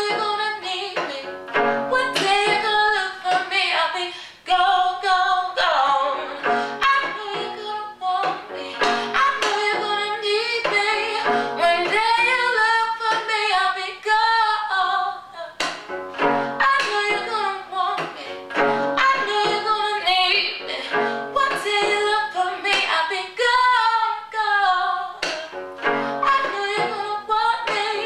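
A woman singing a song with cello accompaniment, her voice wavering up and down in pitch.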